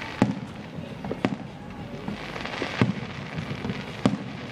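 Aerial firework shells bursting, with four sharp bangs spread a second or so apart.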